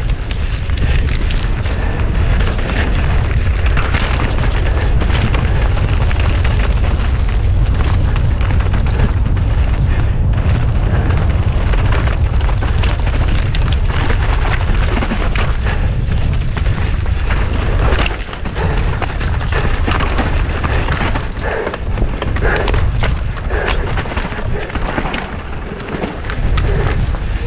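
Mountain bike descending at race speed: wind buffets the on-board camera's microphone over a steady clatter of tyres, chain and frame on rough, rocky ground. The noise eases briefly about two-thirds of the way through and again near the end.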